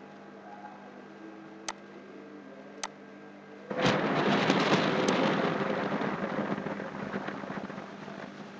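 Two computer mouse clicks, then a sudden loud rush of noise about four seconds in that slowly dies away over the next few seconds, over a faint steady hum.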